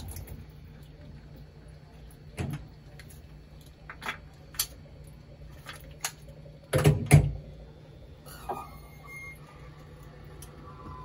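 Vertical honing machine running with a steady low hum, while metal tooling is handled on an engine block's torque plate: scattered sharp metal clinks and knocks, the loudest pair about seven seconds in.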